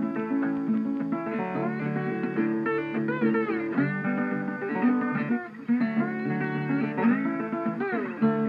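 Background music led by a guitar, with notes that bend and slide in pitch.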